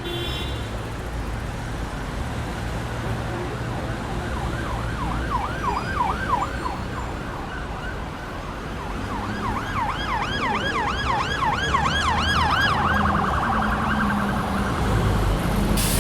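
City street ambience: a steady low traffic rumble with an emergency siren yelping in fast rising-and-falling sweeps. The siren passes twice, first about five seconds in and then for about four seconds from the middle, with a second siren tone above it the second time.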